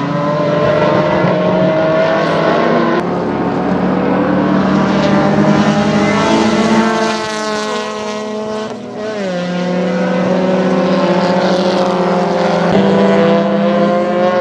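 Historic racing car engines running hard on track, their notes rising and falling with the revs. The engine sound changes abruptly about three seconds in and again near the end. About eight seconds in the pitch drops away and then climbs again.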